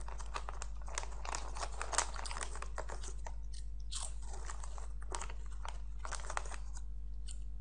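Close chewing and crunching of a crisp corn-puff snack coated in strawberry-flavoured chocolate. The crunches come thick and fast for the first few seconds, then thin out toward the end.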